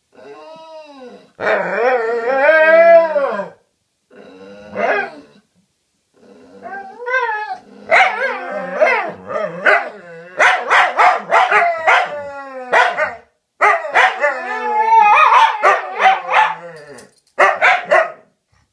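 Two dogs vocalising at each other: long, wavering howl-like 'talking' calls in the first few seconds, then from about seven seconds in a fast run of short, sharp barks and yips.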